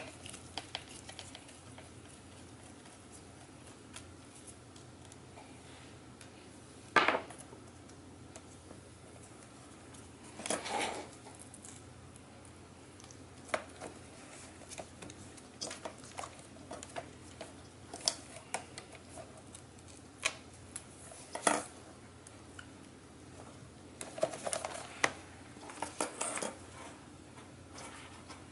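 Small clicks, taps and clatter of a MacBook Pro's case, parts and screwdriver being handled during disassembly. There is one sharp click about seven seconds in and a short rustling stretch near eleven seconds, with scattered clicks after.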